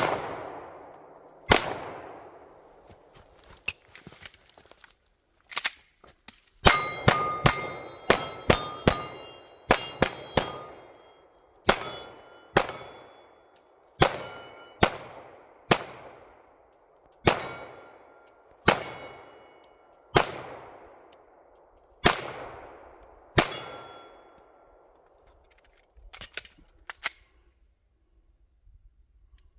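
Pistol shots fired one after another, each followed by the ringing of a struck steel target that fades over a second or so. The shots come about one to one and a half seconds apart, with a fast string of shots and rings partway through and a pair near the end.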